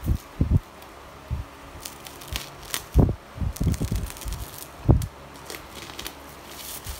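Bubble wrap crinkling and crackling as a wrapped box is handled and slit open with a utility knife, with irregular soft knocks as the box is turned, the loudest about three and five seconds in.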